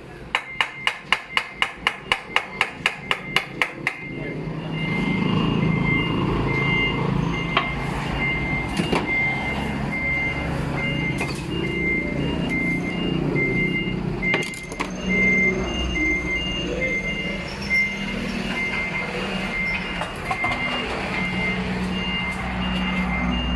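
A quick run of about fourteen sharp knocks, roughly four a second, then a vehicle's reversing alarm beeping in a steady on-off pattern about once a second over a running engine.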